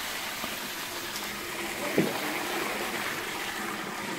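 Water pouring in a steady stream from a plastic bucket into a large metal tray of taro corms, filling it to boil the taro.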